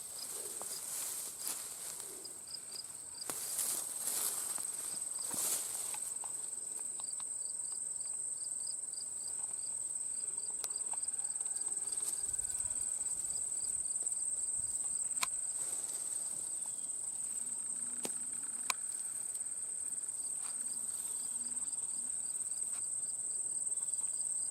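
Insects trilling in a field in autumn: one unbroken high-pitched trill, with a fainter, rapidly pulsed chirping beneath it. Several short clicks and rustles are heard along the way.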